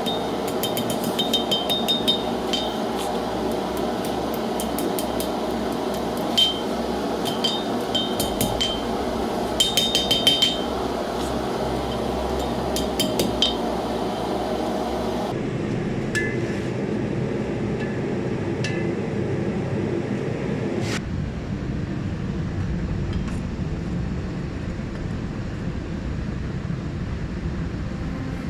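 Blacksmith's hammer striking steel on an anvil, with a bright ring on each blow. The blows come in short clusters through the first half, then only a few scattered strikes in the second half, all over a steady rushing noise.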